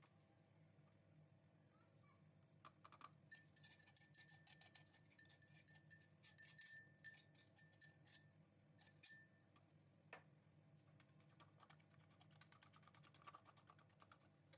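Faint clinking of a spoon tapping and scraping inside a steel cup with a light metallic ring, knocking ground spices out. About ten seconds in it gives way to rapid small ticking of a spoon stirring yogurt in a plastic bowl.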